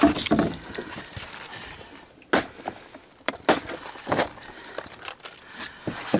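Handling noises from a freshly landed fish and the hooked wobbler: irregular clicks, rustles and a few sharper knocks, the clearest about two and a half, three and a half and four seconds in.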